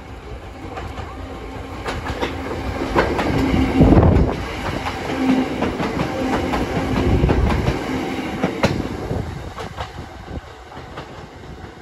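Hakone Tozan Railway electric train passing close by, wheels clacking over the rail joints with a low steady hum. It builds to its loudest about four seconds in, stays loud for a few seconds, then fades.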